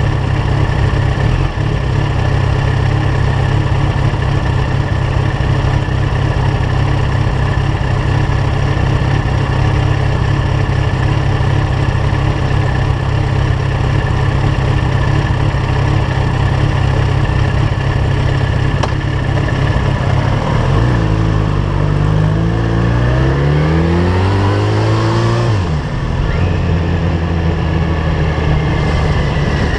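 Yamaha FZ1 inline-four with an aftermarket LeoVince GP-style exhaust idling steadily, then pulling away about 20 seconds in, its revs rising through the gears with a dip at a shift before settling into steady running.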